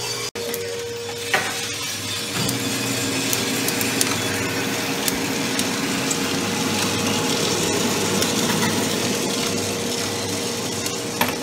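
Arc coffee roaster running: a steady machine hum with a constant tone, under the gritty rattle and scrape of freshly roasted coffee beans being stirred around the cooling tray. A sharp click about a second in and another near the end.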